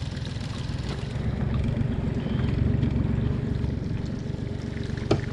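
Small boat's motor running at low speed, with water churning along the hull. One sharp knock near the end.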